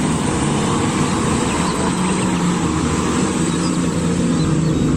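Large mining dump trucks' diesel engines running steadily as the trucks drive on a dirt haul road.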